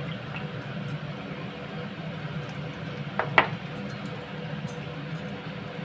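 Steady low hum of a gas stove burner heating a pot of salted water, with one short clink about three seconds in.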